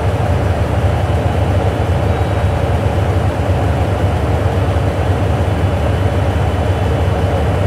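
Electric train at a station platform, a JR Kyushu 885 series, giving a steady low rumble with a hum above it. The sound stays even, with no clear change.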